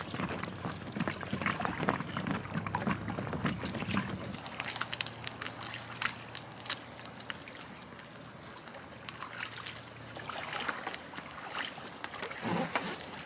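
Water splashing and lapping around a paddled canoe, with many small sharp clicks and knocks throughout.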